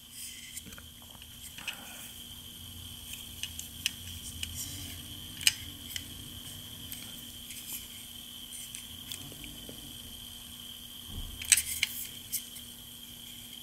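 Faint handling noise: light clicks and taps as a 1:32 die-cast model car is turned over in the hands, with a sharper click about five and a half seconds in and a short run of clicks near the end. A steady faint electronic hum lies underneath.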